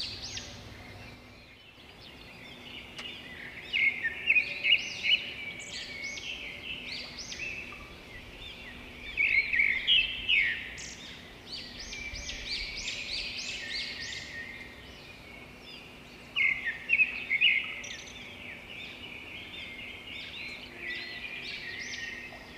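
Birds chirping and twittering in a continuous background chorus, with several louder clusters of quick, high chirps through it.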